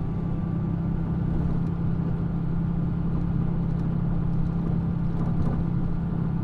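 Mitsubishi Fuso Aero Midi MK (PA-MK25FJ) route bus running steadily, its diesel engine a constant low hum heard from inside the cabin.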